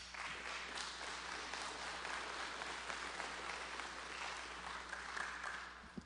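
Audience applauding steadily, tailing off near the end.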